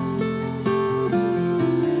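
Background music: acoustic guitar with notes plucked in quick succession.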